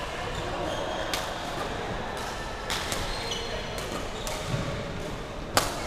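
Badminton rally: rackets striking the shuttlecock in four sharp cracks, the loudest near the end, with shoes squeaking on the court floor between the hits, in the echo of a large sports hall.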